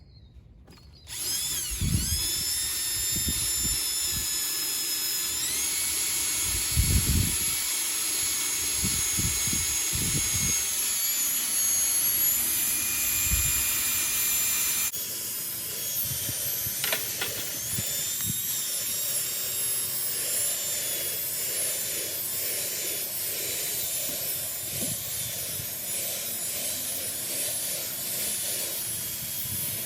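Power drill spinning a scrub brush against car upholstery: a steady motor whine that steps up in pitch a couple of times, with a few dull knocks as the brush is pressed in. The sound changes abruptly about halfway through, then the drill runs on.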